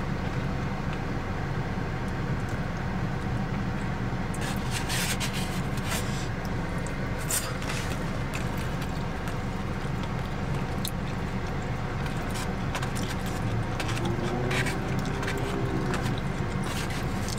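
Steady low hum inside a parked car, with chewing and the occasional click and scrape of chopsticks on a foam takeout box.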